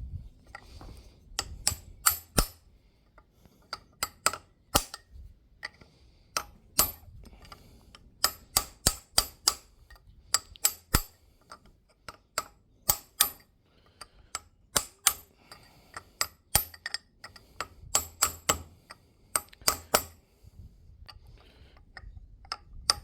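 Hammer tapping on a metal chisel: sharp, ringing metal strikes in quick runs of several taps, with short pauses between the runs.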